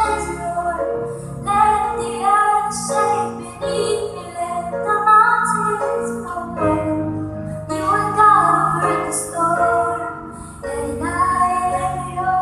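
Music: a woman singing a sustained melody over instrumental accompaniment.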